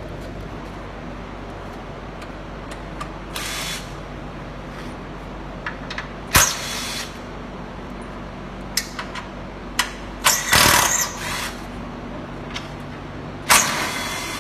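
Handheld power driver run in several short bursts, backing out the 10 mm fender bolts on a Jeep Wrangler JK, with a sharp clank about six seconds in and scattered small clicks of metal parts, over a steady shop hum.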